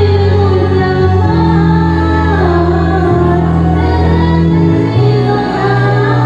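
Music with a woman singing over long held bass notes.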